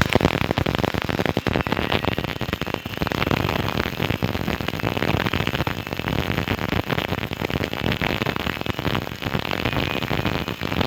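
CO2-shielded MIG welding arc, a steady dense crackle that cuts in suddenly at the start.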